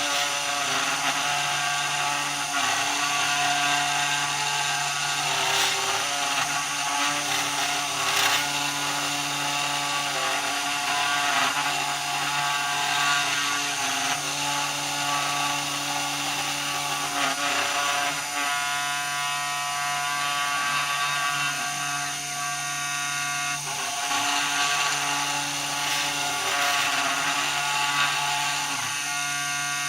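A small CNC machine running, its motors giving a steady whine made of several held tones. Some of the tones jump to new pitches every few seconds as the machine's moves change.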